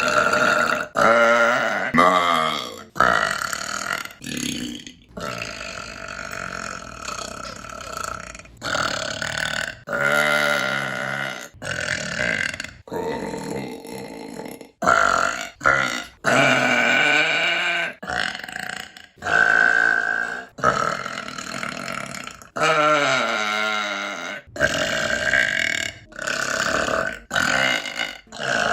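A woman burping over and over: about twenty separate burps spliced back to back with abrupt cuts between them. Some are short and some long and drawn out, with a rough, pitched voice in them.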